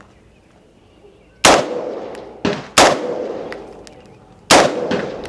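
Gunshots at an outdoor range: three loud shots, spaced one to two seconds apart, each trailing off in a ringing echo, with a fainter shot just before the second.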